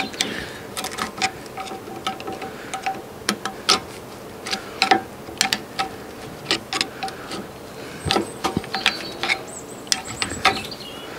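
A flat screwdriver levering an old pad out of a Peugeot 206 rear disc brake caliper: irregular metal-on-metal clicks, scrapes and light ringing clinks, with a brief squeak about eight seconds in.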